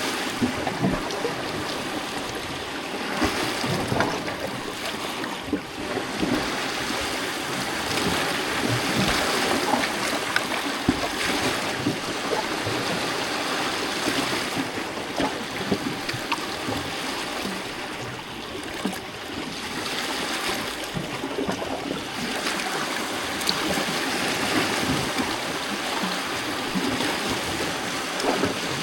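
Small lake waves lapping and splashing among the rocks of a shoreline: a steady wash of water broken by many small, irregular splashes.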